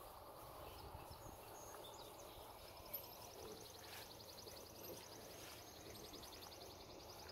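Near silence: faint outdoor background hiss, with a faint high-pitched, rapidly pulsing trill coming in about two and a half seconds in.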